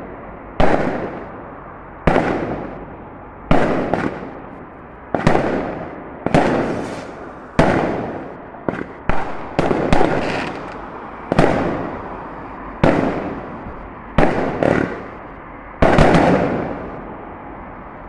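Fireworks going off in quick succession: about fourteen sharp bangs, roughly one every second or so, each trailing off in an echoing rumble.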